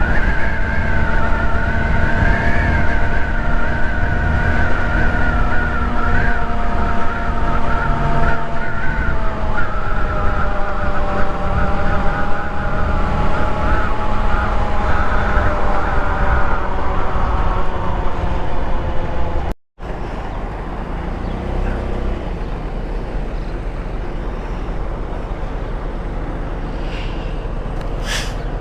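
Ice Bear Hawkeye 150cc GY6 scooter riding along, its single-cylinder four-stroke engine and belt drive giving a steady whine over road and wind noise, falling slowly in pitch as it slows. The sound drops out for a moment about two-thirds through, then carries on quieter.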